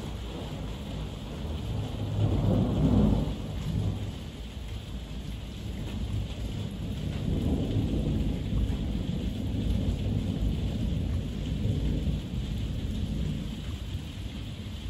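Heavy rain falling in a steady hiss, with thunder rumbling: a loud swell about two seconds in, then a longer rolling rumble through the middle.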